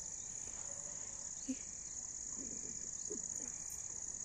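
Crickets chirring in one steady high-pitched drone, with a few faint short low sounds in the middle.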